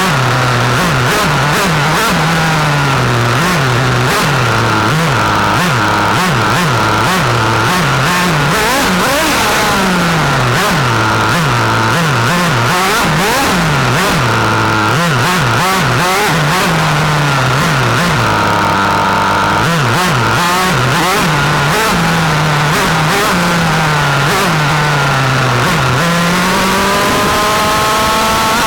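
A 1/8-scale RC car's two-stroke nitro glow engine, heard up close from onboard, revving up and down over and over as the throttle is worked, with a long climbing rev near the end.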